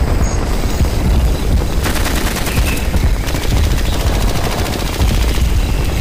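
Battle sound effect: machine-gun fire over a steady low rumble, with a rapid burst of shots about two seconds in lasting just over a second.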